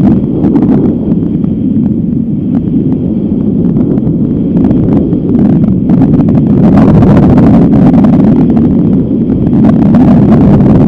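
Strong wind buffeting the microphone, a loud, deep rumble that swells and eases in gusts.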